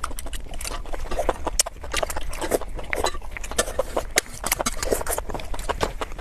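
Close-miked chewing of crunchy food: a dense, irregular run of crackling crunches.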